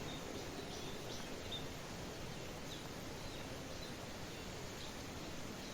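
Birds chirping in short, scattered calls over a steady hiss of light rain.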